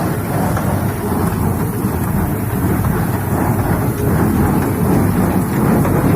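Tractor engine and tractor-drawn paddy-straw baler running together, a steady loud rumble without pauses.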